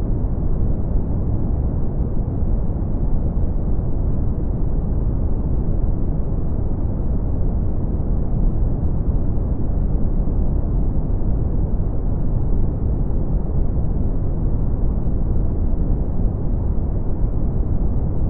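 Steady brown noise: an even, deep rushing hiss, strongest in the bass and thinning out toward the higher pitches, without change.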